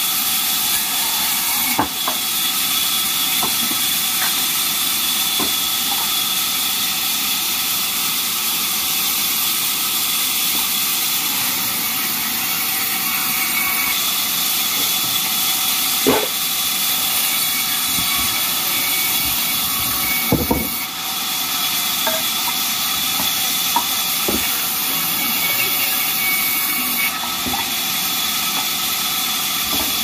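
Large vertical sawmill band saw running with a steady hiss and high whine while it rips a plank of timber fed along its table. A few sharp knocks of wood break in now and then.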